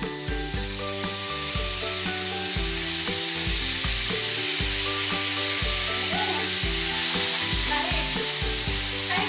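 Hot oil sizzling steadily in a frying pan on a gas stove, a dense hiss that starts at the outset and holds throughout.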